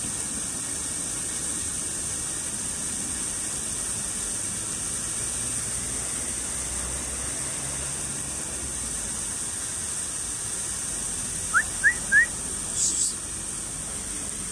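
Steady outdoor background hiss. About twelve seconds in come three quick rising chirps, followed by a brief high rustle.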